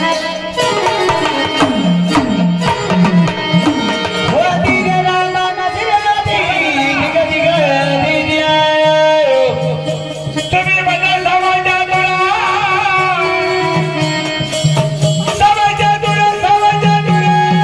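Marathi devotional folk music: hand drums keep a steady beat under a melody line that slides up and down, with the melody strongest in the middle of the passage.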